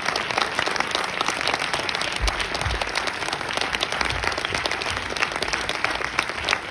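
Cinema audience applauding: dense, steady clapping from a full hall welcoming guests on stage.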